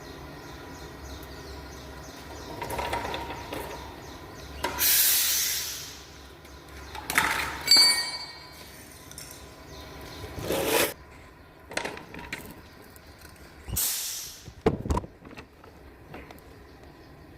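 Irregular clatter and scrapes of tools and engine parts being handled during timing belt work, with a short ringing metallic clink about eight seconds in.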